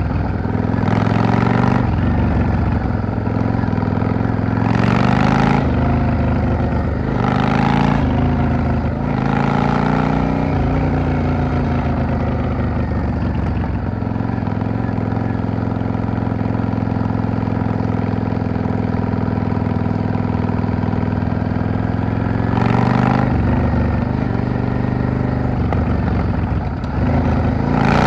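Yamaha XVS650 V-Star bobber's V-twin engine under way, its pitch rising and dropping several times in the first ten seconds, then holding steady at a cruise for about ten seconds before changing again near the end. Several short rushes of noise stand out over the engine.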